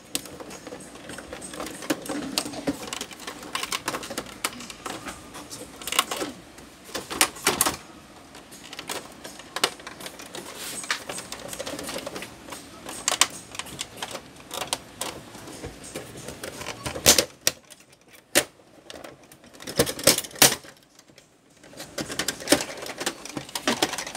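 Plastic casing of a Canon PIXMA MP287 printer clicking, knocking and rattling as it is handled and pried apart, the scanner unit and control panel being lifted. Irregular sharp clicks throughout, with a few louder snaps in the second half.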